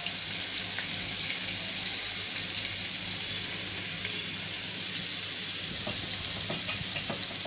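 Flour-coated fish pieces frying in shallow hot oil in a kadhai, with a steady sizzle and a few faint clicks near the end.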